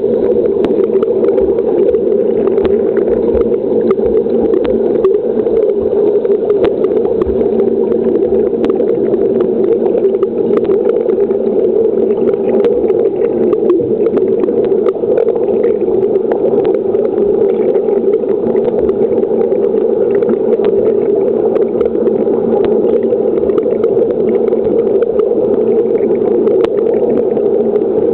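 Steady underwater hum of a swimming pool, heard through a camera held underwater, with scattered faint clicks.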